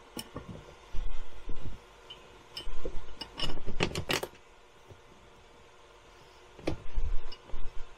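Small metal clicks and clinks from a bolt being handled and turned in by hand at a van's fold-away seat hinge, coming in three short bunches: about a second in, in the middle, and near the end.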